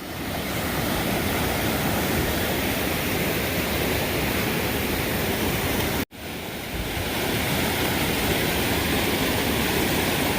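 Steady rush of a fast-flowing mountain creek. It cuts out for an instant about six seconds in, then resumes.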